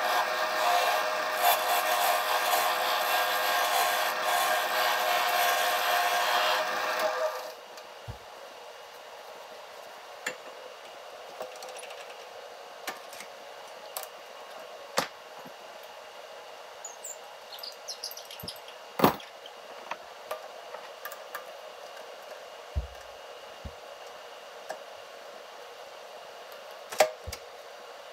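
Wood lathe running with a steady motor whine for about seven seconds, then cutting off suddenly. After that, a faint steady hum with scattered sharp clicks and knocks of a chuck key and metal tools on the lathe as the cherry blank is clamped in the chuck.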